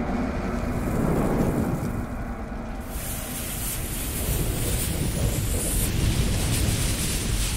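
Intro sound effects of fire building toward a bomb blast: a heavy, steady low rumble, joined about three seconds in by a loud rushing hiss of flames.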